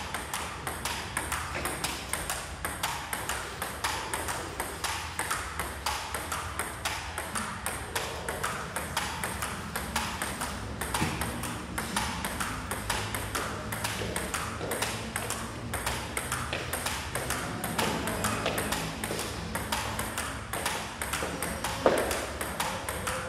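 Table tennis rally: the celluloid ball clicking back and forth off the bats and the table, a few hits a second and unbroken, with one louder hit near the end.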